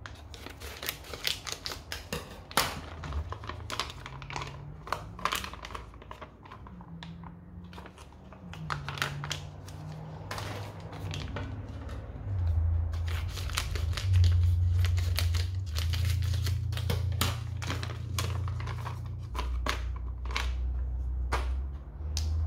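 Plastic packets of glacé cherries crinkling as they are shaken out, with many quick sharp clicks of cherries and packet against a stainless steel saucepan of dried fruit. About halfway through, a low steady hum joins in.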